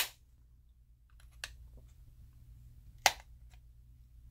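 Sharp snaps and clicks of a surgical knife blade prying at the seam of a Porsche Design external hard drive's plastic case: two loud snaps about three seconds apart, a softer click between them, and faint ticking.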